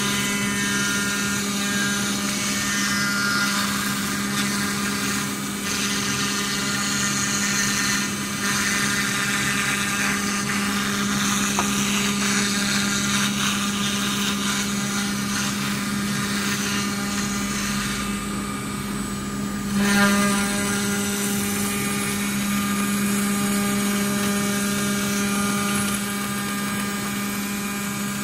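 Water-cooled CNC router spindle milling aluminium sheet: a steady hum under a high cutting whine and the hiss of chips being thrown. The high cutting noise thins for a couple of seconds about two-thirds of the way through, then surges briefly louder.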